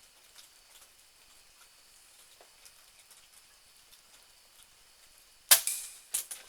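A .22 Benjamin Marauder PCP air pistol firing once: a single sharp crack about five and a half seconds in, followed some 0.7 s later by a second, smaller sharp knock. Before the shot there is only a faint steady background with small ticks.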